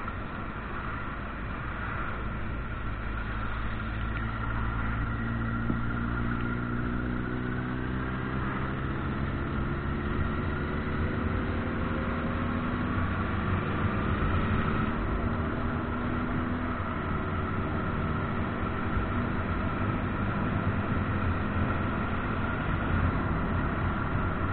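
Motorcycle engine running at road speed, heard from the rider's own bike with wind and road noise. Its pitch climbs slowly as it speeds up, then drops about halfway through as it shifts up.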